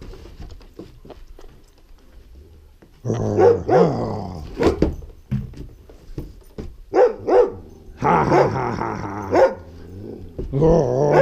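A Shiba Inu barking and growling in several bouts of bending, drawn-out noise, starting about three seconds in. She is yelling at her owner in protest over another dog's ball.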